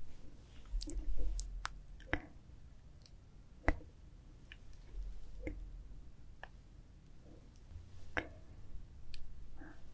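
Scattered soft clicks and small wet squishes of ripe melon being handled close to the microphone, a few seconds apart, with no chewing yet.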